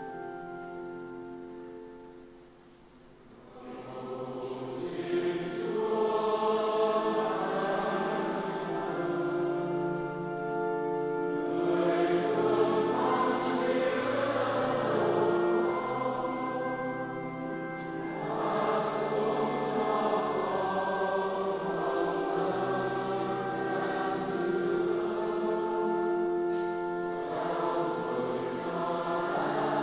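A church choir singing a slow hymn in long held notes. The singing drops away briefly about three seconds in, then comes back fuller.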